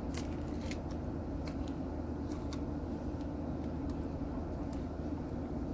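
A steady low mechanical hum throughout, with scattered faint ticks and crinkles as a plastic sauce sachet is squeezed out over instant noodles.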